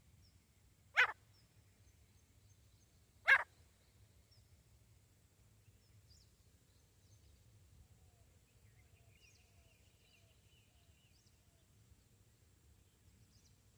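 Two short, sharp calls of a female francolin (teetar), a little over two seconds apart, about a second and three seconds in. Faint chirping and a short trill from small birds follow.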